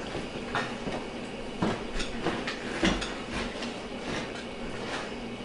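Irregular light clicks and knocks of a small hard plastic object handled on a kitchen countertop, the sharpest few around the middle.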